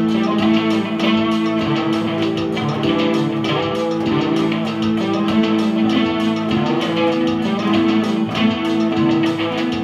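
Electric guitar played through a small practice amp together with an electronic keyboard: rhythmic strummed chords over held keyboard notes.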